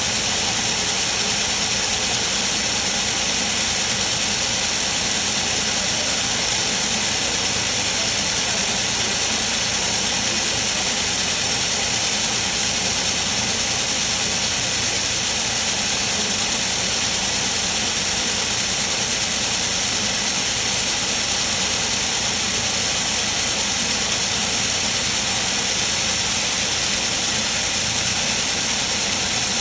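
Robotic laser welding cell at work: a steady, unbroken machine hiss and hum with no pauses or knocks.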